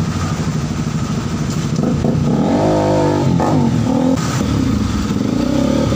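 Kawasaki RS 200's single-cylinder engine running and revving, its pitch wavering up and down around the middle.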